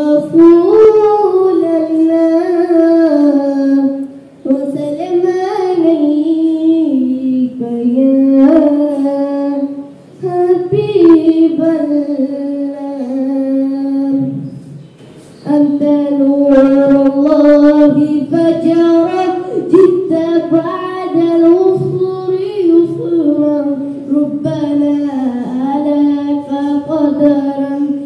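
A boy singing solo and unaccompanied, in long melodic phrases with short breaks between them, about four, ten and fifteen seconds in.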